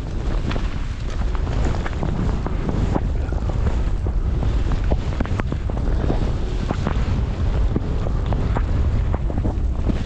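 Wind rushing over the microphone during a fast downhill run through powder snow, a steady low rumble with many short scrapes and knocks scattered through it.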